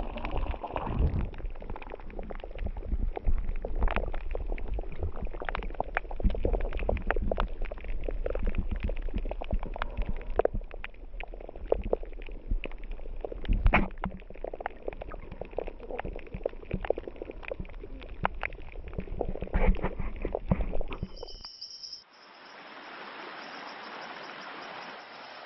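Underwater camera sound on a coral reef: a low rumble of moving water with dense, irregular crackling clicks. Near the end it cuts to the steady rush of a stream tumbling over rocks.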